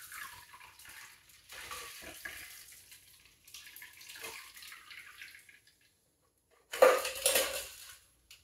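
A shaken cocktail poured from a metal shaker through a fine-mesh strainer into a coupe glass: a soft trickle of liquid in three spells, then about a second of much louder metallic clatter from the shaker and strainer near the end.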